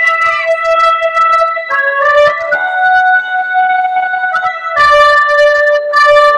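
Music: an electronic keyboard playing a melody of long held notes that step from one pitch to the next every second or so.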